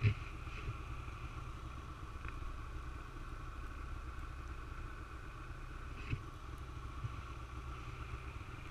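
Snowmobile engine idling steadily at rest, with a sharp knock at the start and a couple of lighter knocks later on.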